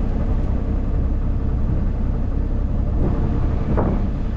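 Tractor engine idling with a steady low rumble, and a single short knock near the end.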